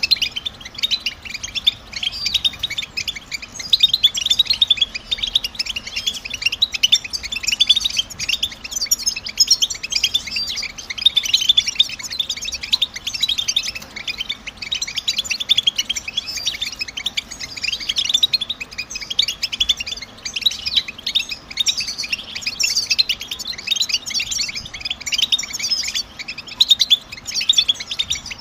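European goldfinch twittering: a dense, continuous stream of rapid, high chirps with no pauses.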